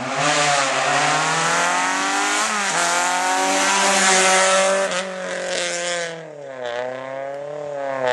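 Rally car engine revving hard as it accelerates past, the revs climbing and then dropping sharply at a gear change about two and a half seconds in, with a loud hiss of tyres on the loose dirt. Past six seconds in the revs fall away, then climb again near the end.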